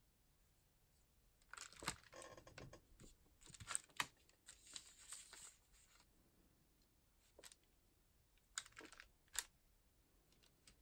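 Thin rice paper crinkling as it is handled, mixed with light clicks and taps, starting about a second and a half in; a few separate sharp clicks follow near the end.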